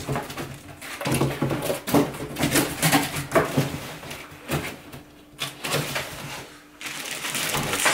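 Foam packing piece being pulled off an air purifier, the foam rubbing and scraping, with a plastic bag rustling in irregular bursts and two short pauses in the second half.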